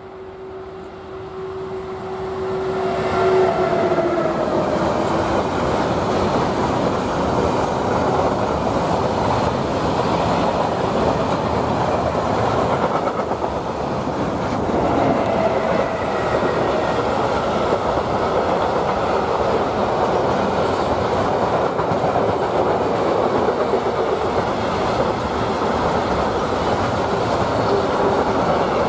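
Double-headed electric freight locomotives (DB Class 152 and Class 185) passing at speed with a long intermodal freight train. A steady whine drops in pitch as the locomotives go by about three seconds in, then the wagons' wheels rumble and clatter on the rails without a break.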